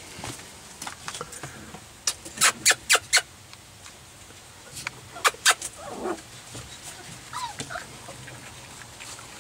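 Five-week-old Boykin spaniel puppies: a quick run of five sharp, loud, very short sounds about two seconds in, three more around five seconds in, and a brief falling whimper a little later.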